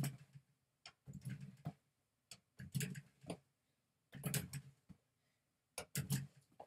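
Repeated knocks and clicks as a small rubber dog chew toy is thrown against a wall-mounted mini basketball hoop and the wall, then caught: five short bursts, about one every second and a half.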